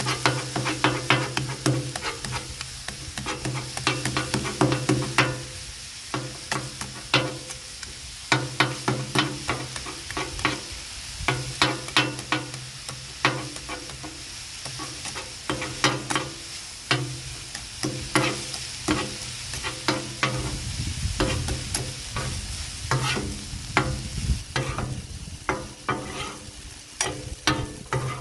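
Metal spatulas clacking and scraping on a Blackstone flat-top steel griddle while chopping and turning sizzling cheesesteak meat, with many quick irregular clicks over the frying sizzle.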